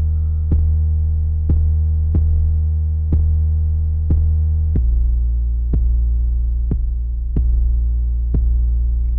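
Homemade FL Studio 3x Osc 808 bass holding long, deep notes, stepping down in pitch a little over halfway through, with a kick drum hitting roughly once a second on top. The bass carries on at full level through each kick, with no sidechain ducking yet.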